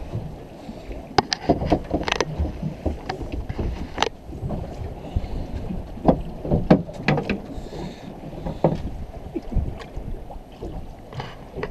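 Scattered sharp knocks and clicks from handling fishing tackle and a caught fish on the deck of a small fibreglass boat. They sound over a steady low rumble of wind and water.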